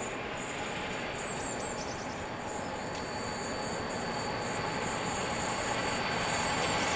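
Distant Class 37 diesel locomotive approaching slowly, its English Electric V12 engine a steady rumble growing gradually louder.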